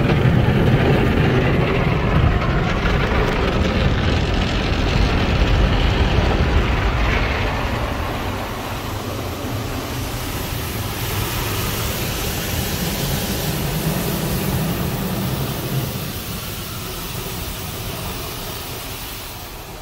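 MacNeil car wash tunnel heard from inside the car: brushes and water spray working over the roof and windows in a loud, steady wash. A low rumble eases about eight seconds in, leaving more of a hiss of spray.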